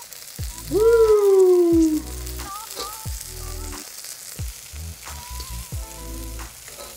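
Chicken wings sizzling in a wok, with scattered clicks of metal tongs and a spatula against the pan. Background music plays over it, with a loud sliding note about a second in.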